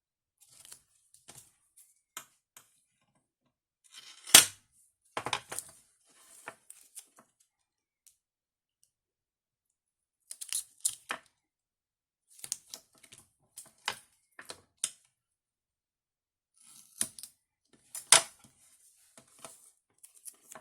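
Paper-crafting handling sounds of foam tape and cardstock: scattered crinkles, peels and light clicks, with two sharper taps about four seconds in and again near the end.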